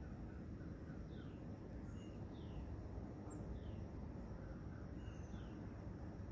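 Birds calling: short chirps that slide downward, repeated at intervals of under a second, over a steady low rumble.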